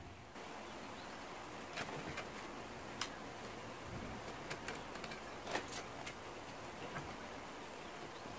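Light plastic clicks and taps, about eight of them scattered irregularly, as 3D-printed fan parts are handled and the printed guard is fitted back over the propeller, over a steady faint hiss.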